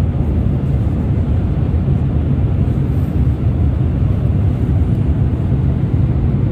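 Airliner cabin noise: a steady low drone of the jet engines and rushing air.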